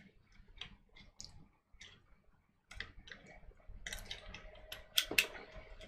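Small scattered clicks and taps of Glock 23 parts being handled and dropped back into place during reassembly. The clicks are sparse at first and come more often in the second half, with the sharpest one about five seconds in.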